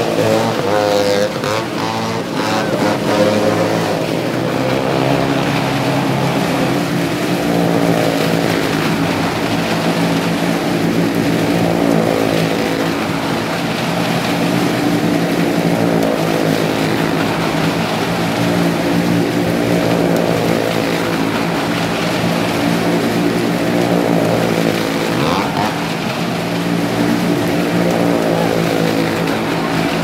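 Engines of cars and motorcycles running steadily as they circle the vertical wooden wall of a well-of-death pit, the sound swelling and fading every few seconds as they lap.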